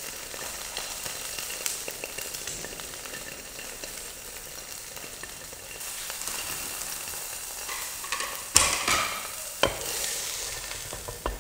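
Egg frying in oil in a nonstick pan, a steady sizzle, with a spatula scraping and turning it. Near the end come a few sharper scrapes and knocks of the spatula against the pan.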